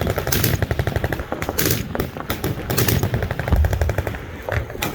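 Machine guns firing in rapid, sustained automatic bursts, with a few louder reports standing out from the rattle.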